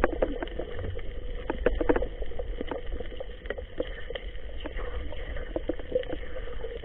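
Muffled underwater sound picked up through an action camera's waterproof case: irregular clicks and knocks over a low rumble and a faint steady hum, as a freshly speared fish struggles on the spear shaft.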